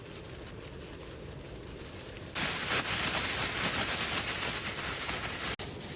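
A loud, steady hiss that starts suddenly a little over two seconds in, following quieter background noise, and cuts off abruptly just before the end.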